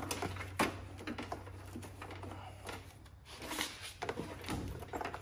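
Scattered clicks and knocks of hand tools and metal parts being handled while the bolts at the back of a Briggs & Stratton lawn tractor engine's shroud are undone, over a steady low hum.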